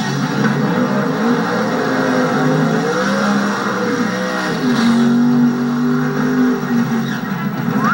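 Drag-race Chevrolet Nova V8 engines revving during burnouts, the pitch rising and falling, heard through a television speaker with no deep bass.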